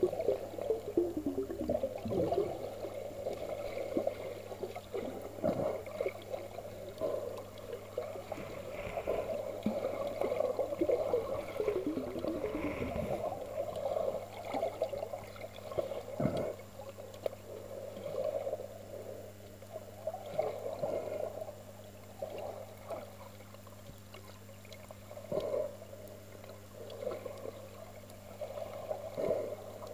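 Muffled sea water sloshing and gurgling, heard underwater just below the surface, uneven and fluctuating, with a few quick falling gurgles and a steady low hum beneath.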